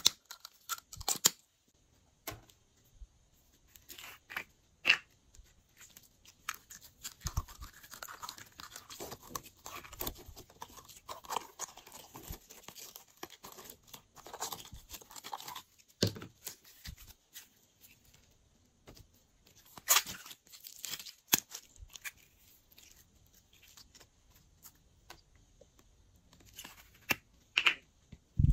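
Sticky, wet squishing of slime being squeezed out of plastic toy bottles, densest through the middle stretch, with scattered sharp clicks and taps of plastic caps and containers being handled.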